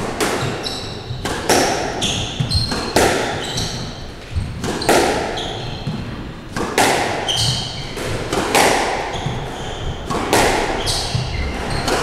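Squash rally: the ball cracks off rackets and the walls every half second to a second, each hit echoing in the enclosed court, with short high squeaks from the players' shoes on the wooden floor between hits.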